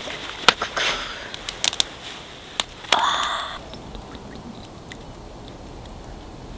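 Glass soju bottle being handled and opened: a series of sharp clicks and taps, then a short rushing sound about three seconds in.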